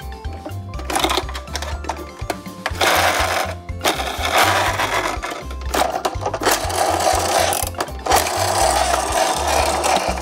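Background music with a steady low beat, with several bursts of mechanical whirring noise, each lasting a second or two.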